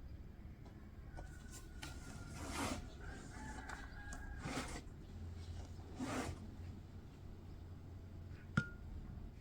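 A rooster crowing faintly, with three soft swishing noises a couple of seconds apart and one sharp click near the end.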